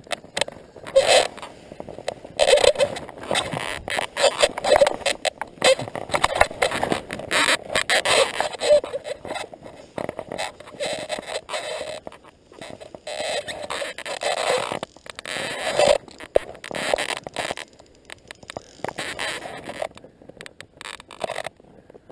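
Irregular rustling and scraping close to the microphone, in uneven bursts with sharp clicks: handling noise from a body-worn camera moving among bankside grass and gear.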